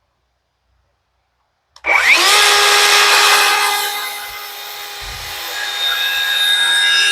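Electric circular saw starting about two seconds in, its whine rising quickly to full speed and then holding steady as it crosscuts a rough-sawn board to length.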